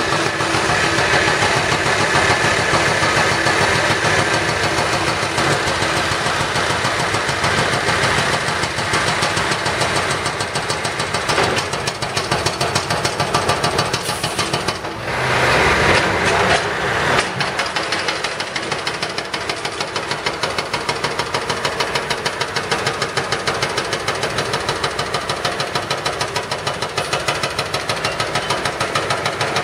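Diesel engines of heavy construction machinery, a concrete mixer truck close by among them, running with a steady rapid clatter. There is a brief louder rush about halfway through.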